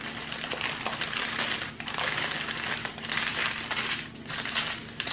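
Plastic bags of diamond-painting drills crinkling as a wrapped bundle of them is opened and the strips of bags are spread out by hand, in irregular rustling spurts with a couple of brief pauses.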